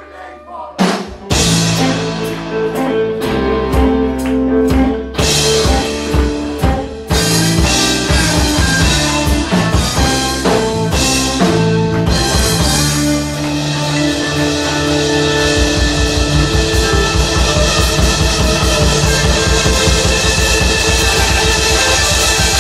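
Live blues-rock band playing electric guitars and drum kit, heard through a phone's microphone. It comes in about a second in with a run of sharp accented hits, then settles into continuous playing over a steady, driving drum beat.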